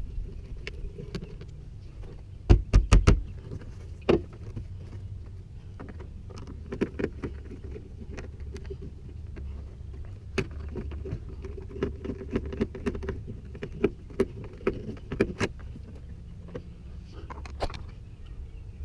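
Clicks, taps and knocks of a car door's interior trim panel being refitted, with plastic parts snapping and tapping into place. A quick run of four or five loud knocks comes about two and a half seconds in, and scattered clicks follow.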